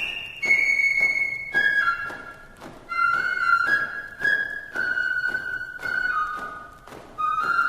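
Background music: a flute-like melody of held notes over a regular percussive beat.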